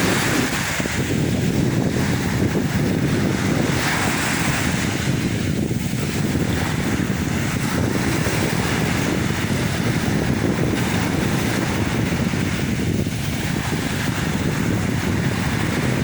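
Sea waves washing onto the shore, the surf swelling and easing every few seconds, under heavy wind rumble on the microphone.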